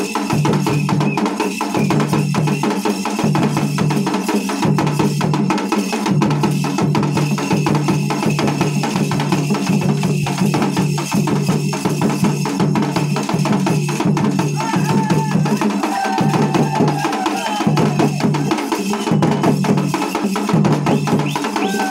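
A small ensemble of folk drums, a large barrel drum, a small drum struck with a thin stick and a double-headed drum, beating a fast, continuous rhythm with a pulsing low boom.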